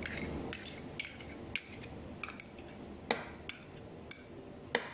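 Light, irregular clinks and taps of kitchen utensils and dishes against a plastic blender jar, around two a second, while thick cream is poured onto cubed mango.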